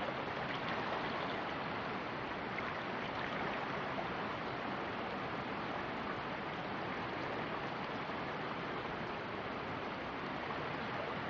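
River water rushing steadily, an even unbroken wash of noise.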